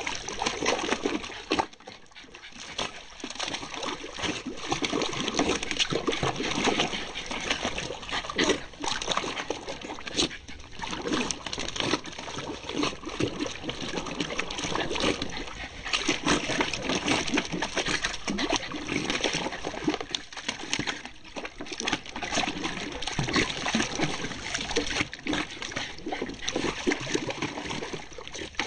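Jack Russell terrier digging with its front paws in water in a plastic tub: continuous choppy splashing and sloshing, with a few brief lulls.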